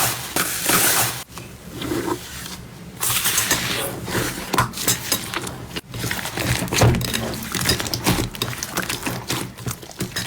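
Slime being squeezed and pulled by hand, giving dense runs of crackles and small pops in bursts with short pauses between them.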